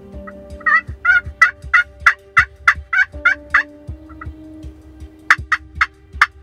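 Wild turkeys calling: a run of loud, sharp notes, about three a second, for about three seconds, then a second run starting near the end.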